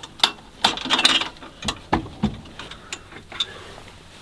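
Awning poles and metal fittings clicking and knocking as the awning is adjusted: a string of irregular sharp clicks, most of them in the first two and a half seconds, then only a few faint ones.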